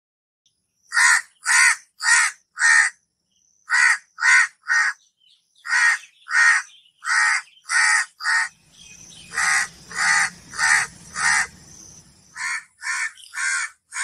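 House crow cawing: about twenty short caws in quick groups of three to five, with brief pauses between the groups.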